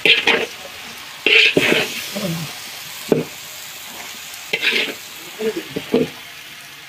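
Metal spatula stirring and scraping vegetables around a large wok in irregular strokes, over a steady sizzle of the vegetables frying.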